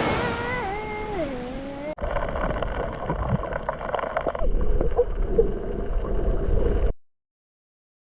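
Wind and water noise on a boat, with a wavering tone that falls in pitch over the first two seconds. About two seconds in, it cuts to heavier rumbling wind on the microphone, which stops abruptly about seven seconds in.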